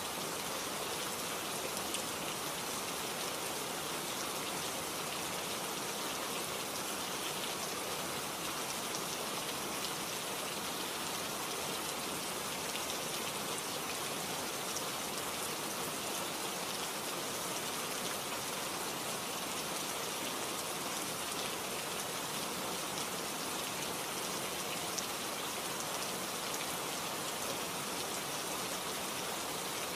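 Steady rain-like noise, an even hiss with faint scattered ticks, holding the same level throughout.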